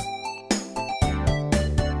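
Background music with a steady beat, a new note or chord about every half second over a bass line.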